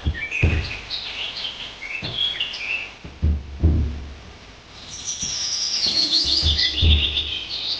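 Small birds chirping and twittering, with a denser run of high, falling twitters from about five seconds in. A few low thumps sound underneath.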